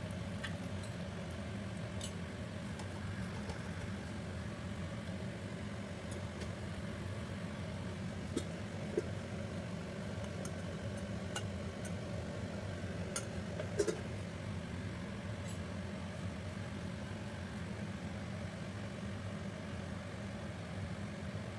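A steady low hum, with a few light clinks of a metal slotted spoon against the pan of frying jalebi: twice around nine seconds in and again around fourteen seconds.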